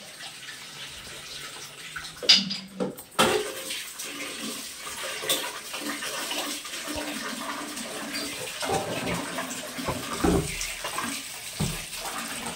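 Kitchen tap running into a large steel bowl, water splashing as fenugreek leaves are rinsed in it. A few sharp knocks and clatters of handling stand out, the loudest about two seconds in.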